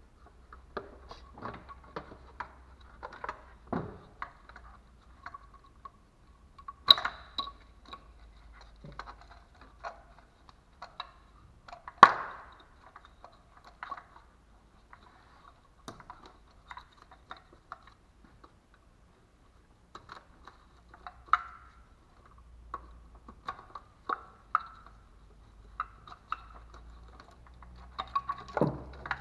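Hands unclipping fittings in a car's engine bay: scattered light clicks and taps of plastic connectors, clips and a small hand tool, with two sharper knocks about seven and twelve seconds in.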